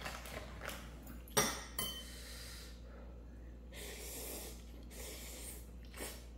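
Eating sounds at a bowl of ramen: a sharp clink of a utensil on dishware about a second and a half in, briefly ringing, then a few soft breathy hisses.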